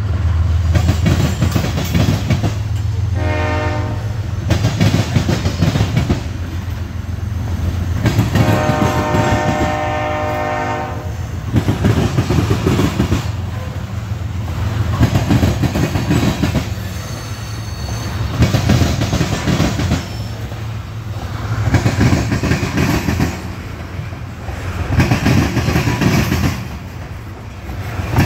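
Freight train of covered hopper cars rolling past close by: a steady rumble, with the clack of each car's wheel sets swelling every few seconds as the cars go by. A distant locomotive horn sounds twice, briefly about three seconds in and for about three seconds starting around eight seconds in.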